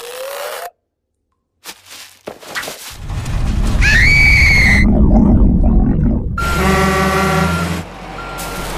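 Cartoon sound effects: a short rising squeak, a pause, then a loud rumble under a cartoon cockroach's high scream that rises and holds. A truck horn then blares for about a second and a half.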